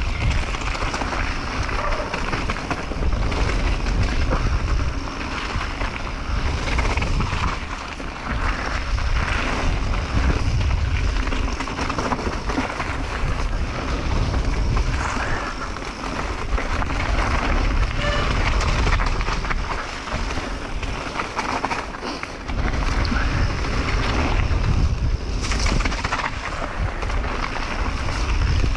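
Mountain bike riding down a dirt and gravel trail: tyres running over the ground, with knocks and rattles from the bike over rough spots and wind buffeting the microphone.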